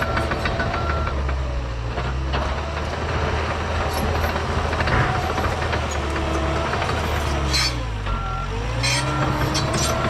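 John Deere 650K crawler dozer's diesel engine working under load, its pitch dipping and recovering about eight seconds in, with the reversing alarm beeping near the start and again near the end. Sharp cracks and clanks come through over the engine.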